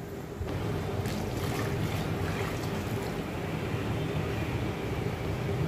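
Coconut milk being poured into a hot pan of cooked mung dal and melted jaggery: a steady, watery pour that starts about half a second in, with a low hum underneath.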